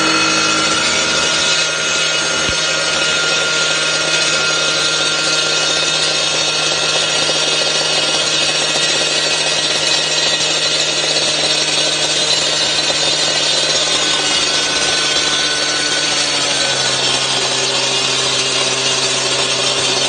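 Big grinder running continuously as it cuts into a wall: a steady, loud grinding with a motor hum and whine. A few seconds before the end the hum drops slightly in pitch.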